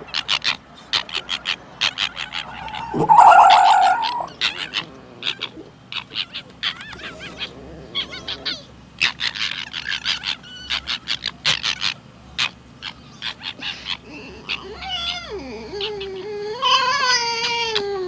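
Red fox calling: runs of short chattering calls, a loud harsh call about three seconds in, and high whining calls that waver up and down in pitch near the end.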